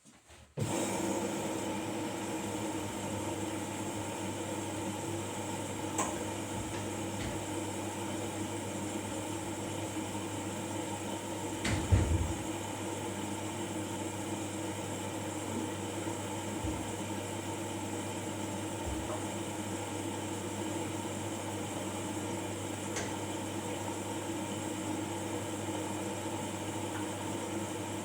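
Washing machine running with a steady hum and hiss, with a few light clicks and one louder knock about twelve seconds in.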